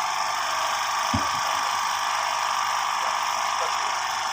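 A steady mechanical drone with hiss, like a running engine, that holds an even level throughout. There is one short low thump about a second in.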